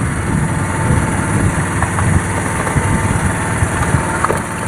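A boat engine idling steadily with a continuous low rumble.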